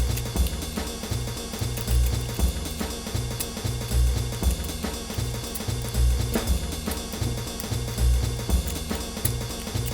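Background music with a steady drum-kit beat: bass drum and snare.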